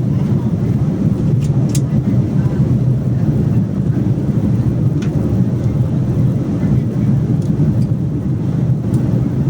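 Steady loud low rumble of an airliner's jet engines and rushing air, heard from inside the cabin, with a few faint clicks and rattles.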